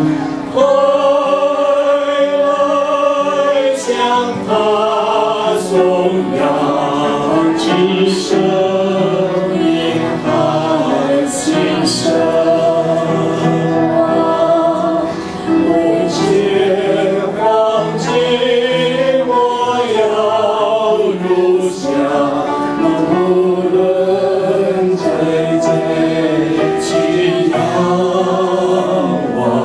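A small group of men and a woman singing together into microphones, amplified over the hall's sound system.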